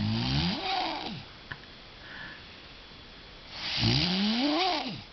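A woman snoring in her sleep: two long snores, one at the start and another about three and a half seconds in, each rising and then falling in pitch.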